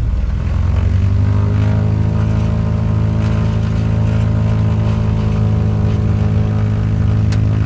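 Small propeller plane's engine heard from inside the cabin while taxiing after landing. Its drone rises in pitch over the first couple of seconds, then holds steady.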